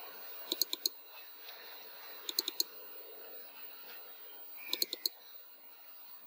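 Computer mouse button clicked in three quick runs of three or four sharp clicks, about two seconds apart, over a faint steady hiss.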